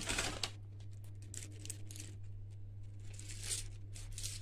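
Faint, scattered crinkling and light rustles of dry cornflakes being picked up by hand and dropped into silicone molds, over a low steady hum.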